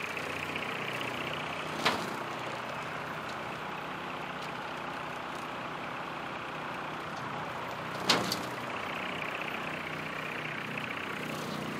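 TYM compact utility tractor's diesel engine running steadily under load, driving a rotary cutter through tall grass. Two sharp knocks stand out, one about two seconds in and one about eight seconds in.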